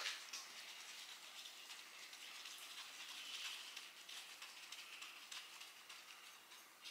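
Faint clicks and rattles of metal parts being handled while working on the carburettor of a Ford flathead V8, with one sharp click right at the start and light scuffling about three seconds in.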